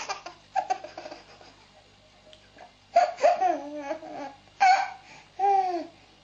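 Laughter with high-pitched voiced sounds: a giggling run fades out at the start, then three drawn-out, gliding vocal sounds come about three seconds in and near the end.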